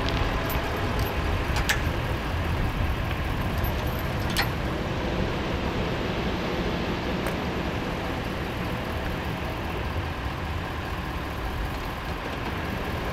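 Steady rumble of a pickup truck's engine idling, with a few light clicks in the first half.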